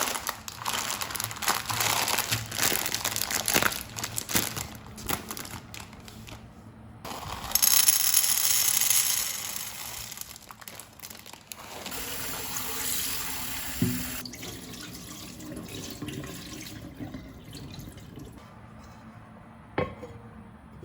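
Water running from a kitchen tap into a sink, louder for a few seconds near the middle, with clicks and knocks of dishes or utensils being handled.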